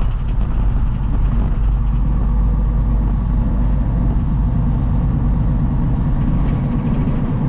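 Semi truck's diesel engine and tyres heard from inside the cab, a steady low drone while driving slowly, at about 25 miles an hour, over snow and ice.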